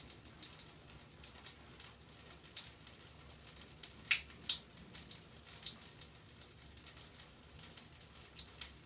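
Water trickling and splashing: a rapid, irregular patter of small drops, over a faint steady low hum.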